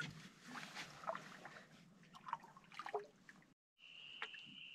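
Faint canoe paddle strokes: water dripping and trickling off the blade with small splashes. About three and a half seconds in the sound cuts out briefly, then a steady high tone takes over.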